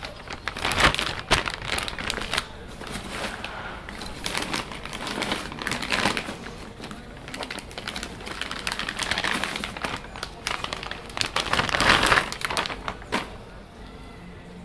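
Clear plastic packaging bags crinkling and rustling in irregular bursts as bagged coilover shocks are handled and pulled from a cardboard box. The crinkling is loudest shortly before the end and then dies down.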